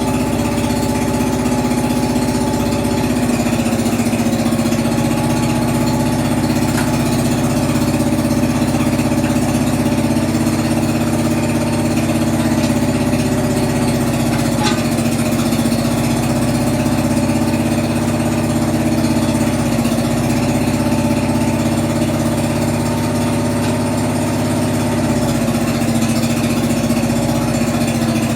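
Engine of a homemade mini backhoe running steadily, its pitch dipping slightly a couple of times.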